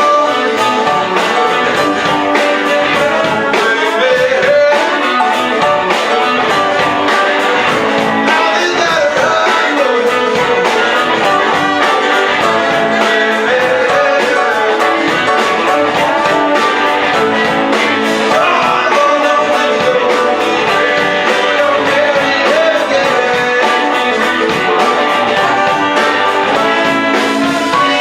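Live band playing a bluesy jazz-rock song: electric guitar, keys, bass, drums, tenor saxophone and two trombones, with horn lines over the rhythm section.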